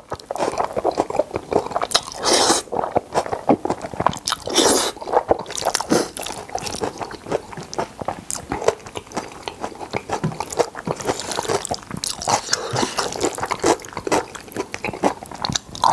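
Close-miked eating of jjajang noodles in black bean sauce: wet, smacking chewing with many small clicks, broken by several louder slurps as noodles are drawn into the mouth.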